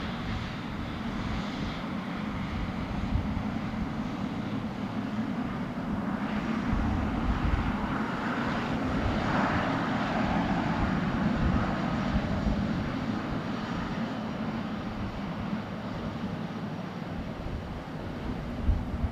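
Jet airliner's engines at takeoff thrust, a steady rumble that starts abruptly, swells to its loudest about halfway through as the aircraft passes, and then slowly fades.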